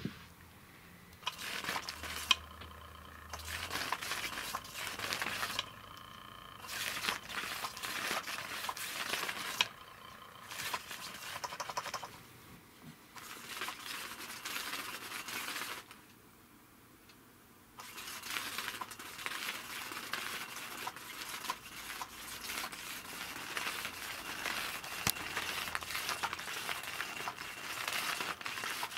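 Battery-powered Catch Me If You Can 2 cat toy running: its motor sweeps the wand around under the fabric cover with a scratchy, rattling rustle. It starts and stops several times with short pauses, then runs on through the last ten seconds or so.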